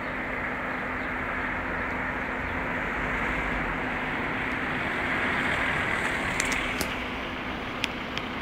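Road traffic noise: a steady rush that swells a little past the middle and then eases, under a low steady hum. A few sharp clicks come near the end.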